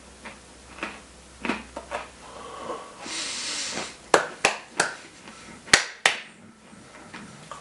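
Handling of a gift package of candies: soft scattered clicks, a brief rustle, then a handful of sharp clicks and knocks about two thirds of the way in.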